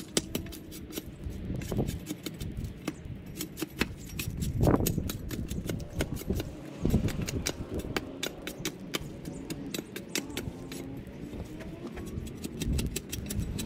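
Drawknife blade scraping bark off a wooden walking-stick blank in repeated strokes, with many sharp clicks.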